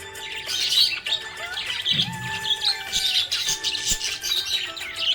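Budgerigar chirping and warbling, a dense run of quick, high chirps and squawks.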